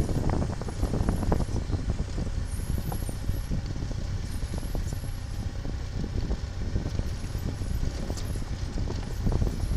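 A steady low rumble with frequent irregular knocks and rattles, like a motor vehicle running over a rough road.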